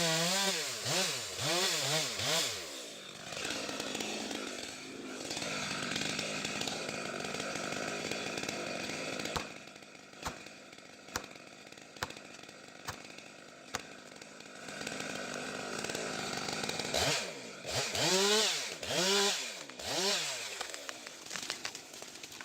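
Two-stroke chainsaw engine revved up and down several times in quick succession, then running more steadily through a cut. A few sharp cracks sound partway through, and the saw is revved in repeated bursts again near the end.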